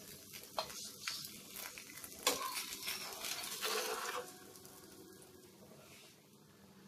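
Ghee sizzling on a hot tawa under a paneer paratha, with a few sharp clicks and scrapes of a metal spatula as it is slid under the paratha to lift it off. The sizzle is loudest about two to four seconds in, then fades to a faint hiss.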